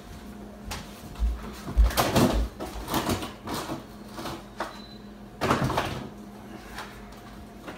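Kitchen clatter: a series of knocks and bumps, with the loudest clusters about two seconds in and again about five and a half seconds in.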